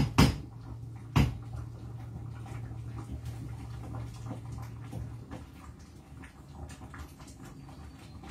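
Two sharp knocks in the first second or so, then faint light clinks of a spoon in a saucepan on the stove over a low steady hum that stops about five seconds in.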